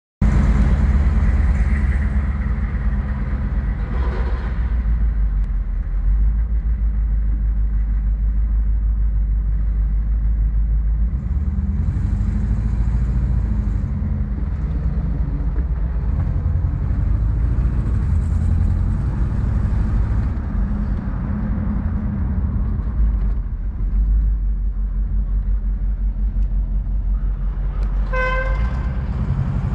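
A car engine running with a steady low rumble and road noise, heard from inside a vintage car's cabin while driving. A car horn toots briefly near the end.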